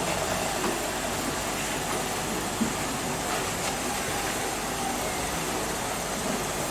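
Steady hum and hiss of background noise, even throughout, with one faint click about two and a half seconds in.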